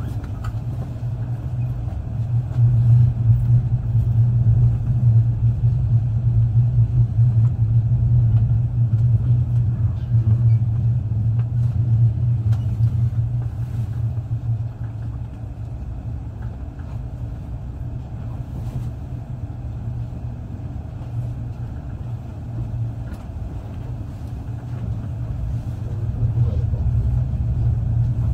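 Moving passenger train heard from inside the carriage: a steady low running rumble. It is louder through the first half, eases off about halfway through, and builds again near the end.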